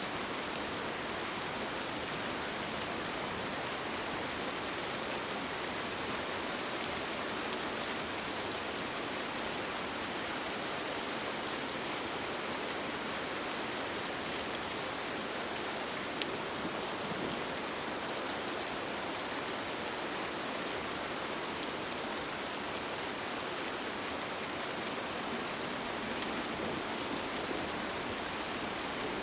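Steady rain falling on a tent, an even hiss with scattered faint drop ticks.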